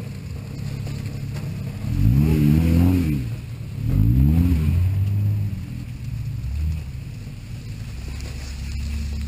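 Jeep Wrangler's engine pulling the vehicle off-road, revving up and easing off twice, about two and four seconds in, with a steady low drone between.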